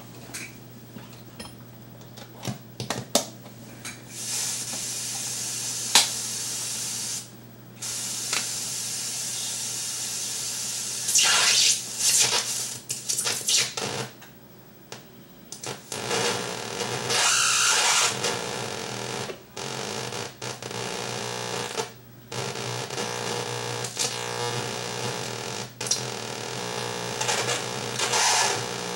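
Homemade battery-powered electronic noise generator heard through its output cable: harsh hissing, buzzing static that cuts in and out abruptly and shifts in texture as its parts are handled. Sharp clicks come in the first few seconds, over a steady low hum.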